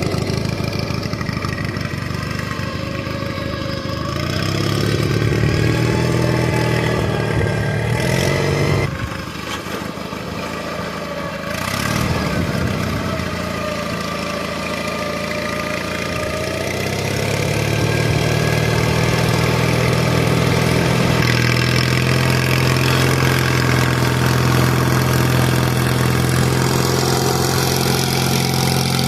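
Riding lawn mower's engine running during a test drive of the LT1000 off-road mower, speeding up and slowing down. It climbs from about four seconds in, drops sharply near nine seconds, picks up again after a knock near twelve seconds, and settles into a steady higher run from about seventeen seconds.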